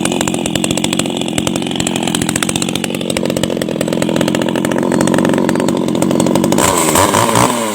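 Maruyama MCZ300 two-stroke pruning chainsaw running steadily. Near the end its engine speed rises and falls.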